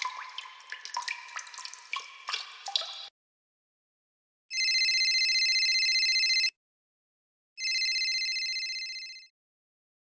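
Water drops plinking rapidly for about three seconds. After a pause, a telephone rings twice with a fast trill; each ring lasts about two seconds, and the second fades out.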